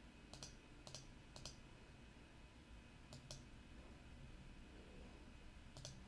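Faint computer mouse clicks: three close together in the first second and a half, another about three seconds in, and one near the end, most heard as a quick pair of snaps.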